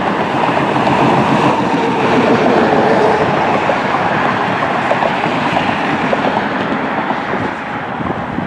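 Turbofan engines of an Embraer E-Jet regional airliner on approach with its gear down: a loud, steady jet noise that swells over the first couple of seconds and then slowly eases, with wind buffeting the microphone.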